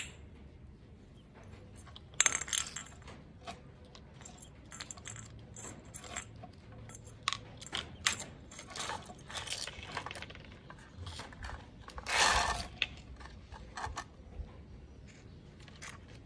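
Small plastic toy kitchenware clicking and clattering against a tiled floor as a baby monkey handles it, with a sharp knock about two seconds in and a longer scrape about twelve seconds in.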